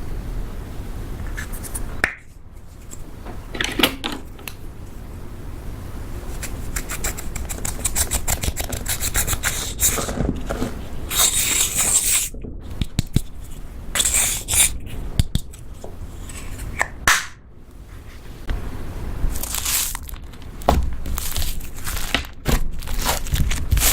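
Butter slime being worked and mixed with makeup: sticky crackling, irregular clicks and scraping with short hissy bursts.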